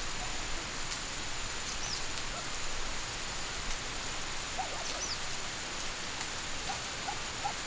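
Mini sprinklers on a garden-hose drip line spraying water, a steady hiss. A bird gives a short high chirp twice, about three seconds apart, and a few lower chirps come in the second half.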